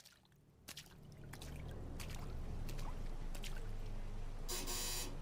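Rain falling and dripping over a low steady hum, fading in at the start, with scattered sharp drips. Near the end a door buzzer sounds once, for about half a second.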